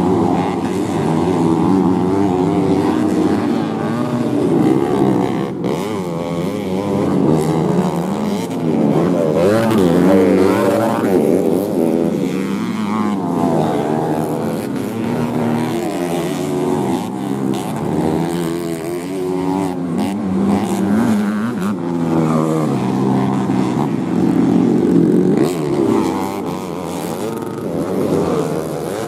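Modified underbone motorcycles racing on a dirt grasstrack, their engines revving up and easing off again and again, several overlapping at once.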